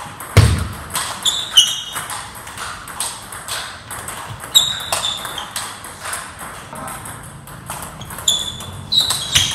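Table tennis play: the plastic ball clicking off paddles and the table in quick irregular strokes, with sneakers squeaking briefly on the wooden floor and one heavy thud about half a second in.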